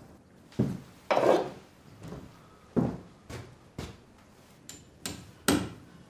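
A hammer knocking in about eight irregular strikes, a half-second to a second apart, each a short sharp knock.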